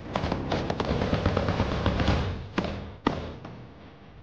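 Close small-arms fire in a firefight: a rapid run of rifle shots for about two seconds, then a few separate louder shots, trailing off near the end.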